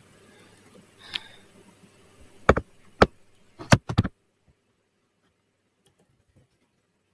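Computer keyboard keys struck close to the microphone: a soft click, then a run of about six loud, sharp clacks over a second and a half, after which only a few faint taps follow.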